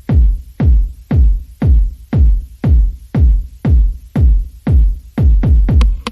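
Electronic background music with a heavy bass drum beating about twice a second.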